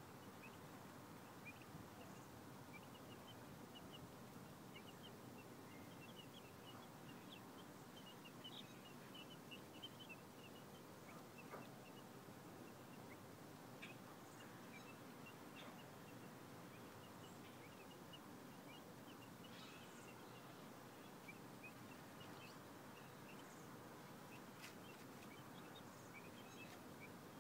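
Baby chicks and turkey poults peeping: a scatter of many short, high peeps throughout, faint over a steady low hiss.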